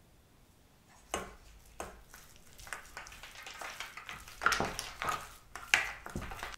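Wooden spatula stirring and mashing ground meat in a stainless steel bowl: irregular wet squishing strokes with scrapes against the bowl, starting about a second in.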